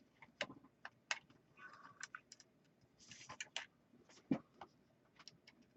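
Faint, scattered clicks and taps of a plastic model truck's door and body being handled as the door is fitted on its hinge, with a couple of short scraping rubs.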